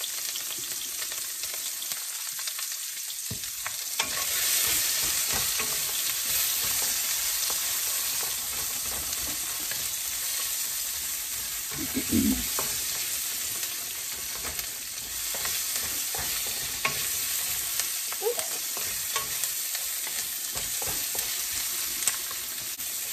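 Chopped onions sizzling in a hot wok, stirred with a wooden spatula that scrapes and clicks against the pan. The sizzle gets louder about four seconds in.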